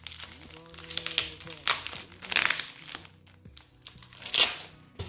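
Plastic packaging crinkling in several bursts as hands pull a parcel out of a plastic bag and handle a plastic courier mailer, the loudest burst near the end. Background music plays underneath.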